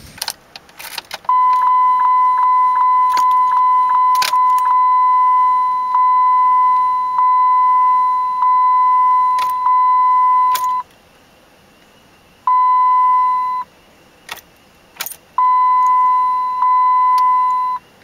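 Dodge Ram instrument-cluster warning chime: a steady electronic tone runs for most of the first ten seconds with quick breaks, then sounds in two shorter stretches. Keys jangle and the ignition switch clicks, but the engine does not crank at all. This is the truck's no-crank fault, which was traced to a worn-through PCM power wire.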